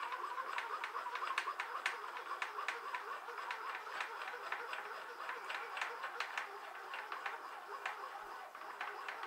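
Cross slide of a Harrison M300 lathe being wound across by its hand feed screw, giving an irregular run of light clicks and ticks, several a second.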